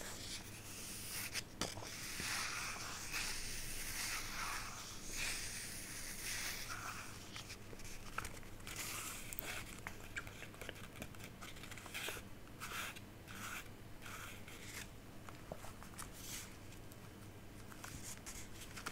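Close-miked crinkling and rustling of small stationery items being handled, with scattered short sharp clicks.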